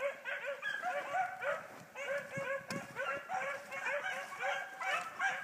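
Small pack of hounds in full cry, baying together as they run the track of game, with many overlapping cries several times a second and no break.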